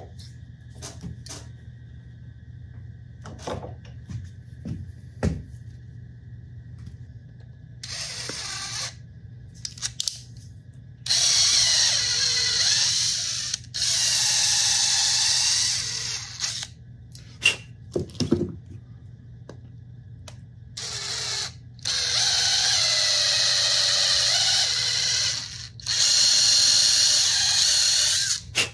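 A DeWalt cordless drill runs in about six bursts of one to three seconds, its pitch rising and falling with the trigger, with a long bit turning in the hub of a plastic wheel. Before the first burst come a few knocks as the wheel is handled at a bench vise.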